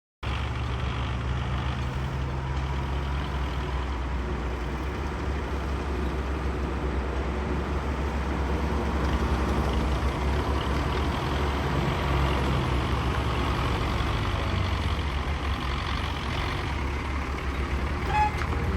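Heavy construction machine's diesel engine running steadily under work, cutting in suddenly at the start, with a brief high squeak near the end.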